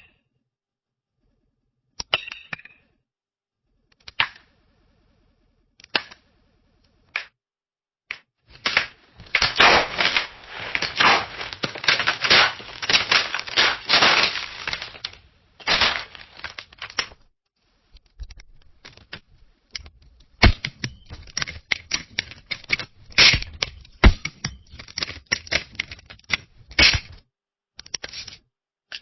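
Camera flashbulbs popping: a few single sharp pops a second or two apart, then a long dense flurry of rapid pops and clicks, a short lull, and another dense flurry near the end.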